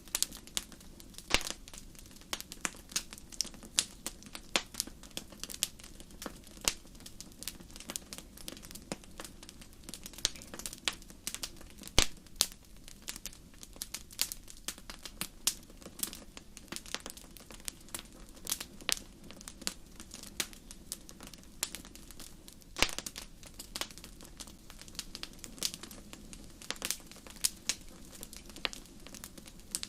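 Wood fire crackling: a steady scatter of irregular sharp pops and snaps, a few louder than the rest, over a low steady rumble.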